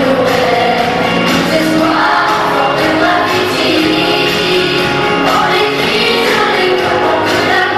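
A choir of schoolboys singing a song together, holding long notes.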